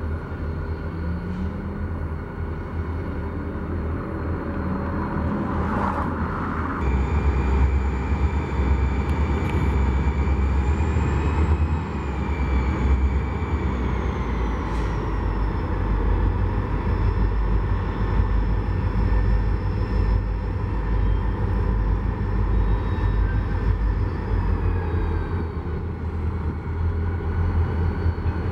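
A vehicle's engine running with a steady low rumble. It grows louder about seven seconds in, and a high whine drops in pitch around the middle.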